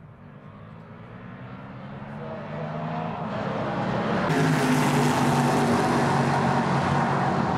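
Several Formula 5000 racing cars' 5-litre V8 engines accelerating, with overlapping notes climbing in pitch. The sound grows steadily louder as the field comes closer.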